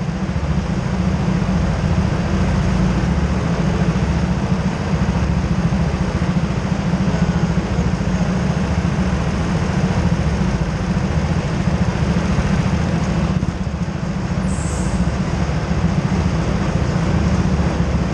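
Go-kart engines idling together on the grid, a steady low rumble. A short high-pitched hiss cuts in briefly near the end.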